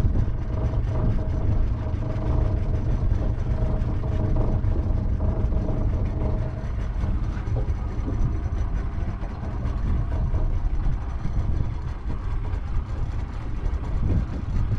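Boat engine idling, a steady low rumble, with a faint steady hum above it that fades out about halfway through.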